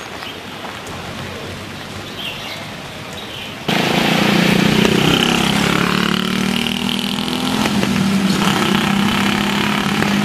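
Steady rain hiss, then about a third of the way in a louder vehicle engine sound comes in abruptly and keeps running steadily with a low hum.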